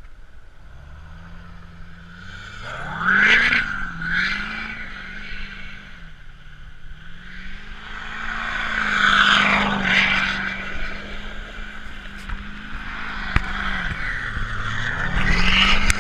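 2015 Chevrolet Silverado's Duramax 6.6-litre turbodiesel V8 revving hard in repeated surges while doing donuts. Its pitch climbs and drops about four times, with the loudest runs about three seconds in, near the middle and near the end.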